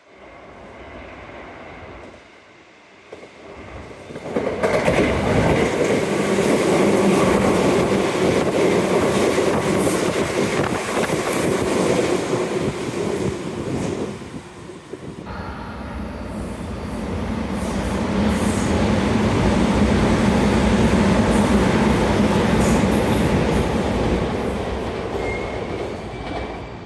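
Electric commuter trains running through the station, a loud rumble with wheels clattering over the rails. It swells in about four seconds in, breaks off abruptly about halfway, then builds again and fades near the end.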